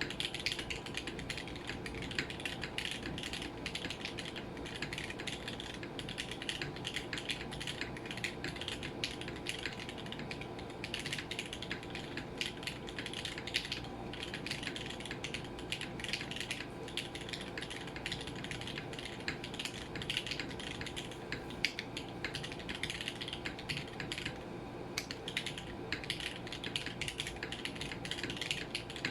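Continuous fast typing on a Mode SixtyFive mechanical keyboard with lubed Gateron Vermilion Bird linear switches, an aluminium plate and an unfoamed polycarbonate case: a quick stream of keystroke clacks. An air conditioner hums steadily underneath.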